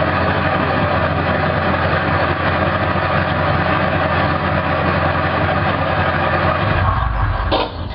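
WWII army jeep engine running steadily with a low drone. Near the end the engine noise drops away, leaving a lower rumble and a short click.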